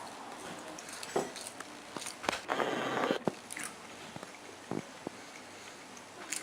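A person eating chicken nuggets: biting and chewing, with scattered small clicks and one louder, noisier stretch a little before halfway.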